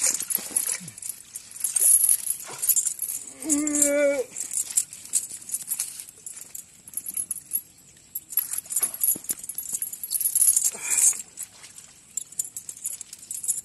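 Metal chain clinking and rattling, with water hyacinth leaves rustling, as the chain is hauled by hand through the plants. One short wavering call cuts in briefly about three and a half seconds in.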